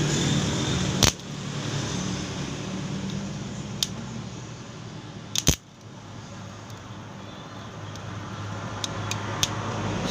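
A homemade thin-plate welding machine humming steadily with a hissing noise over it, broken by sharp clicks and taps: one about a second in, a close pair near the middle and three quick ones near the end.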